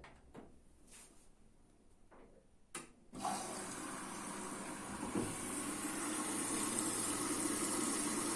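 A few faint clicks, then about three seconds in a Hotpoint Ariston ARSL 105 washing machine's water inlet opens and water rushes steadily into the machine as it fills.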